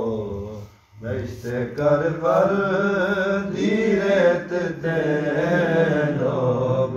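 A man's unaccompanied voice chanting a noha, a mourning lament for Imam Hussain, in long, wavering held lines. It breaks off for a breath just under a second in, then resumes.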